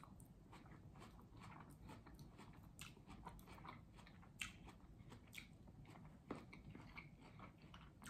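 Quiet, close-miked chewing and mouth sounds of a person eating, with a few short sharp clicks scattered through.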